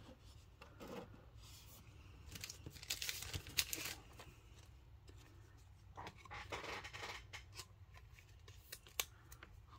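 Baseball cards being slid into thin plastic sleeves and handled: faint rustling and scraping of plastic in two stretches, with a few light clicks.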